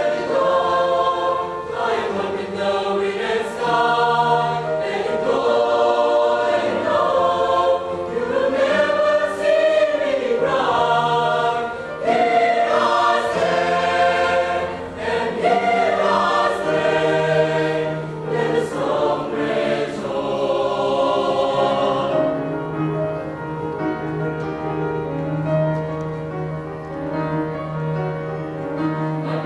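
Mixed choir of men's and women's voices singing a pop-jazz arrangement in parts, the upper voices dropping away and the singing softening for the last several seconds.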